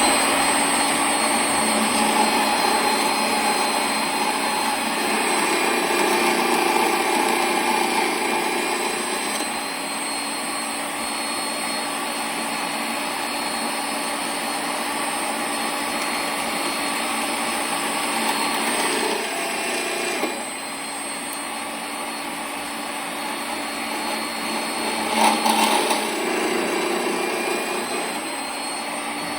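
Electric power tool motor running steadily at speed after spinning up, with small shifts in level as the work changes, including a dip about two-thirds of the way through.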